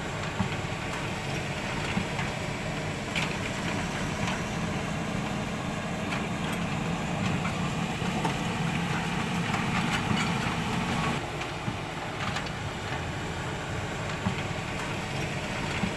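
WL 16800 remote-control excavator running: a steady low motor hum with a few faint clicks, easing off briefly about eleven seconds in.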